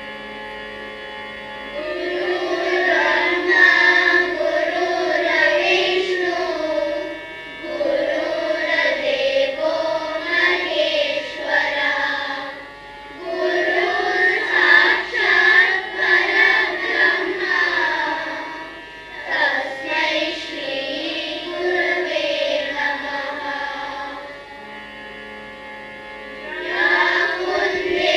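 A group of boys singing a devotional prayer in unison, in long phrases separated by short pauses, over a steady held note.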